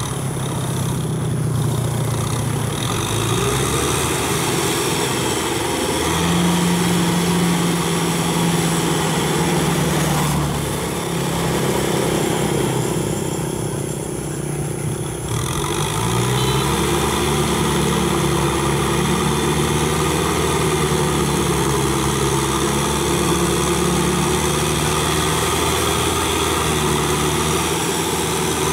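Kubota M6040 tractor's diesel engine running steadily under load, driving a Maschio rotary tiller through wet paddy mud. The engine note dips about halfway through, then climbs back up and holds.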